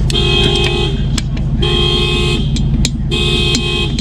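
Car alarm on a 2019 Cadillac XTS sounding the horn in repeated blasts, each under a second, about every second and a half, over a steady low rumble.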